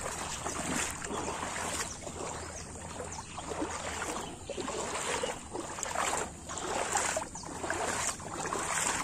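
Footsteps wading through shallow floodwater, a splashing slosh about once a second.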